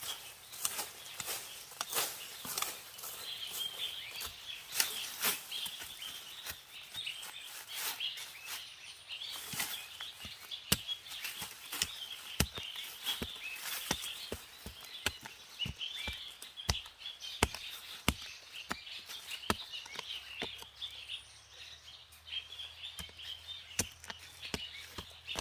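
Many sharp, irregular snaps and clicks over a steady high chirping in the background.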